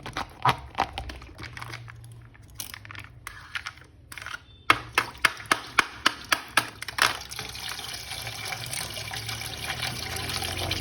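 A quick run of sharp clicks and knocks of handling, then from about seven seconds in a water tap running steadily into a sink, slowly growing louder.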